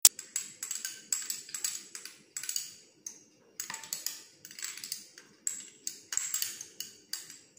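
A metal utensil tapping and clinking against a stainless steel stand-mixer bowl, in a quick irregular run of short ringing taps, about three a second with brief pauses.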